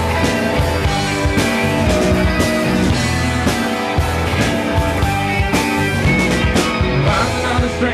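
Live rock band playing an instrumental passage: electric guitars and electric bass over drums with repeated cymbal strokes.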